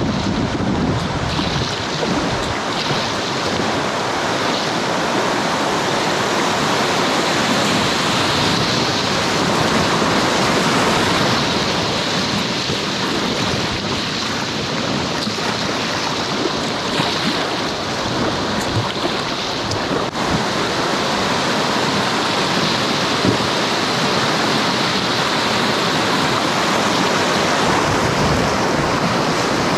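Steady rushing and splashing of river water close to the microphone.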